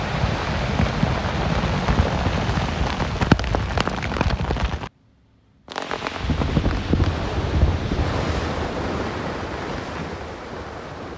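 Rumble of a rock blast, with scattered cracks of rock and debris landing. It cuts off abruptly just under five seconds in. After a moment of silence a second blast's rumble swells and then slowly dies away.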